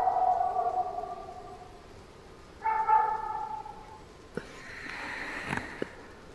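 Two drawn-out whining cries, the second shorter and a little higher, then a sharp click and a short hiss with a few small clicks near the end.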